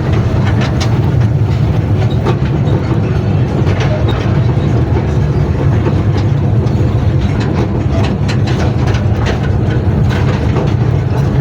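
Ride-on toy train running on its track: a steady low rumble with scattered, irregular clicks from the wheels and cars.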